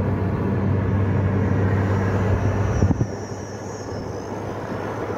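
Car running at highway speed, heard from inside the cabin: a steady low engine and road drone. About three seconds in there is a short knock, and the sound drops to a quieter, even rush of road and wind.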